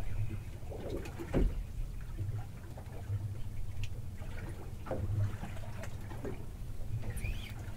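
Low steady hum of a small boat at rest, with scattered knocks and clicks from handling gear on deck and one sharper knock about a second and a half in.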